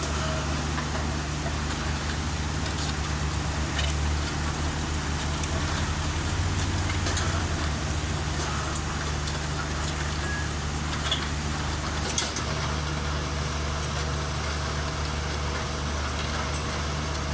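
Engine of a truck-mounted concrete mixer pump running steadily, with a pulsing throb for a few seconds in the middle and a couple of short sharp clicks about two-thirds through.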